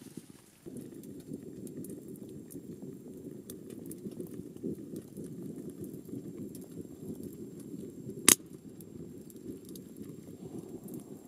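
Wood fire burning in a small wood stove: a steady low rush of flame full of fine crackles, starting abruptly just under a second in, with one loud sharp pop from the burning wood about eight seconds in.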